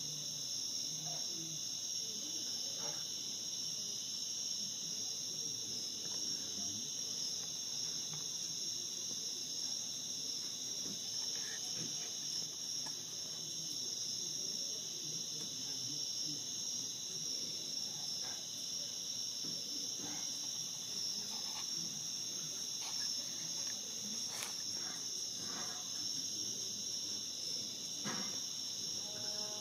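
Steady chorus of night-singing insects, an unbroken high trill, with a few faint small ticks and rustles underneath.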